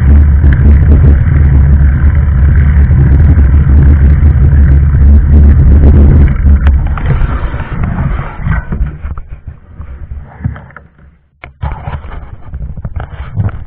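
Bicycle rumbling and rattling over a rough gravel path, the vibration carried straight into the bike-mounted action camera. After about six seconds the rumble dies away as the bike rolls onto grass and stops, leaving a few sharp clicks and knocks near the end.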